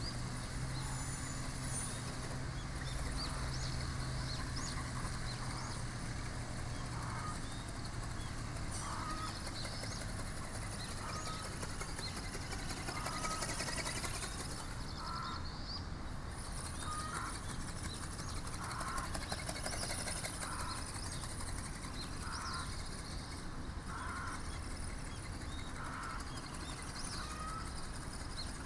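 Outdoor ambience with a steady hiss and small birds chirping. A bird calls over and over, about once every second or two, from about eight seconds in. A low steady hum fills the first several seconds.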